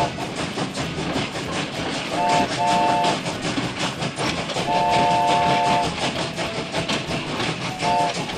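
Train sound effect: wheels clattering steadily over rail joints, with a three-note chord whistle giving two short toots about two seconds in, one long blast about five seconds in, and another short toot near the end.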